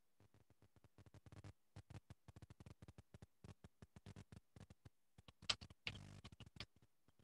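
Faint typing on a computer keyboard: a quick, irregular run of key clicks, with one louder clack about five and a half seconds in.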